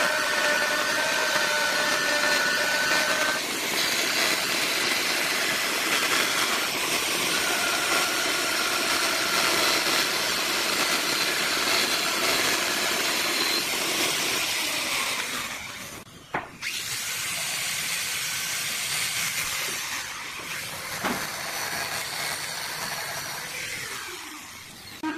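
Woodworking power tool running and cutting hardwood, a steady hiss of cutting over a motor whine. It drops away briefly about sixteen seconds in, then runs again.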